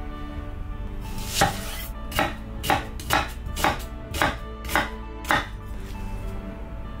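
Chef's knife slicing through a peeled onion and knocking down onto a wooden cutting board: about eight cuts at roughly two a second, starting about a second in, the first the loudest.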